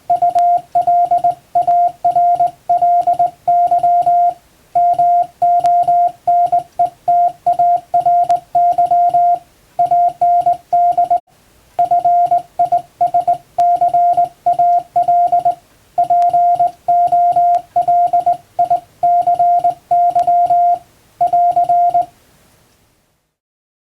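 Morse code sent by hand on a straight (up-and-down) telegraph key, heard as a steady mid-pitched beep keyed on and off into dots and dashes spelling out plain-language English text. The keying stops about 22 seconds in.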